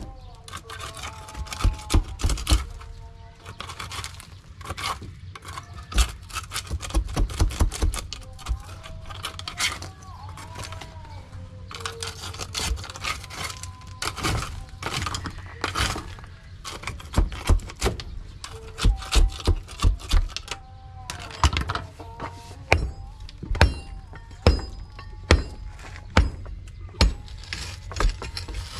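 Steel bar and mattock striking and prying at broken concrete and rock, in clusters of quick, sharp blows with chunks of rubble clattering.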